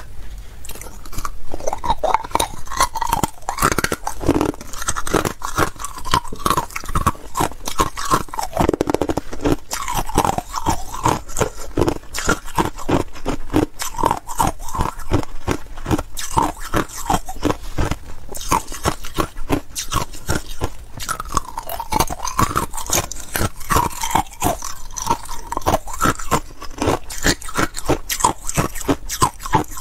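Frost-covered bullet ice (hollow cylindrical ice-maker cubes) being bitten and chewed: a rapid, continuous stream of sharp cracks and crunches.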